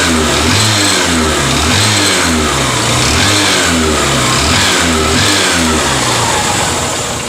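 Honda CB Shine's 125 cc single-cylinder four-stroke engine running and revved in repeated short blips, its pitch rising and falling about once a second. It has an abnormal engine noise that the mechanic suspects comes from the connecting rod, or else from the tappets or rocker.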